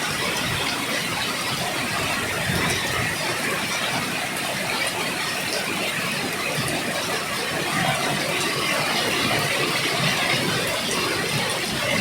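Steady rain falling, an even hiss with faint scattered pattering.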